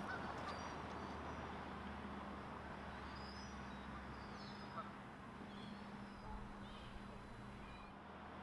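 Quiet outdoor ambience: a steady faint hiss and hum, with a few faint, distant bird chirps.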